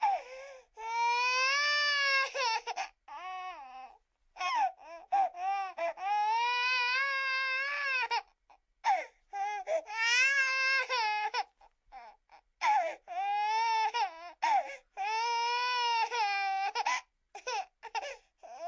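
A baby crying: long wailing cries that rise and fall in pitch, each held for one to three seconds, broken up by short choppy sobs and catches of breath between them.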